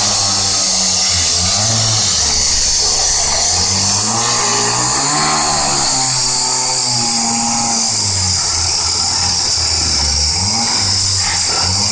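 Two-stroke chainsaw cutting into a car's bodywork, its engine pitch repeatedly dropping and rising again as the chain bites and frees up.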